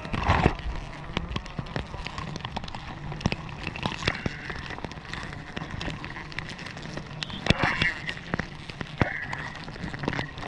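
Rustling and scraping close to the microphone as a climber moves against leaves, twigs and tree bark, with many scattered sharp crackles and clicks.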